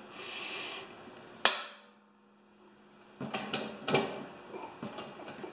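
Metal clicks and knocks of locking pliers gripping and turning a 5/16 carriage bolt in a snowblower's steel auger housing. There is one sharp click about a second and a half in, then a cluster of lighter clicks and knocks near the end.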